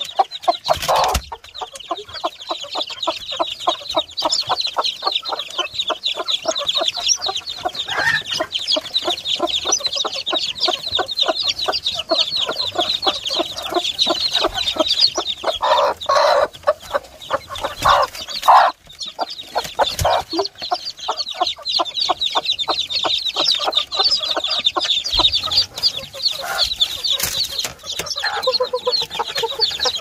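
Chickens clucking over a constant chorus of high, rapid peeping from chicks.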